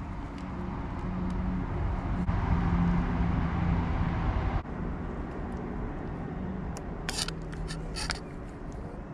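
Low engine rumble of a passing motor vehicle, swelling to its loudest midway and dropping off abruptly. A few short sharp clicks near the end as food is spooned onto the plate.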